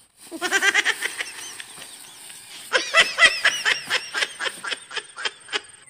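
High-pitched laughter in two runs of quick "ha-ha-ha" pulses, the second longer.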